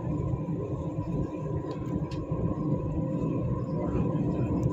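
Dubai Metro electric train running along the track, heard from inside the carriage: a steady low rumble with a thin steady whine over it, and a short click at the very end.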